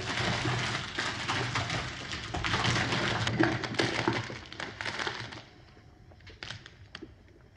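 Film sound effects of a noisy scuffle, thick with cracks and knocks, dying away about five and a half seconds in to a few faint clicks.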